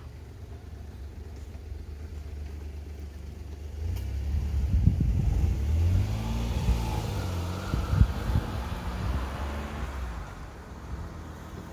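A small hatchback car drives up from behind and passes close by. Its engine and tyre noise build from about a third of the way in, peak in the middle with the engine note shifting slightly, then fade as it moves away; a sharp knock comes about two-thirds of the way through.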